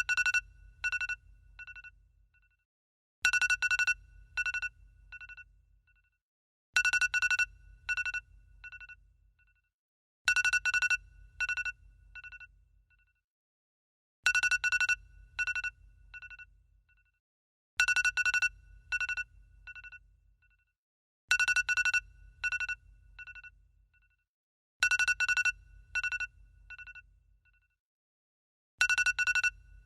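iPhone alarm tone ringing: groups of bright electronic chimes, each a loud first chime followed by a few fading ones. A group comes about every three and a half seconds, with a low hum under each.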